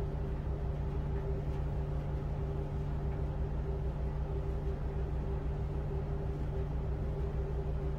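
Tugboat's diesel engines running steadily under load while towing, a constant low drone with a few fixed hum tones.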